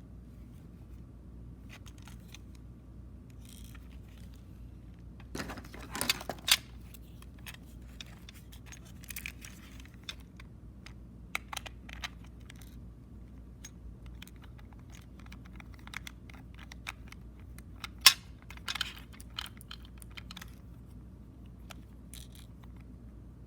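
Plastic wrapping crinkling and a cassette's plastic case being handled, with scattered clicks and crackles. A louder cluster comes about six seconds in, and a sharp click at about eighteen seconds.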